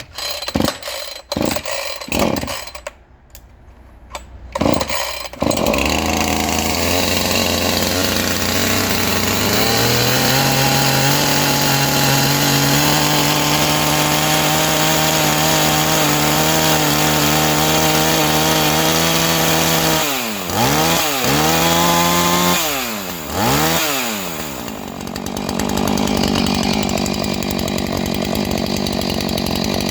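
Husqvarna 450 II two-stroke chainsaw being started: a few short sputters, then the engine catches about five seconds in and runs, its speed stepping up a little around ten seconds. Around twenty seconds in the throttle is blipped three times, the engine revving up and dropping back each time, before it runs on steadily.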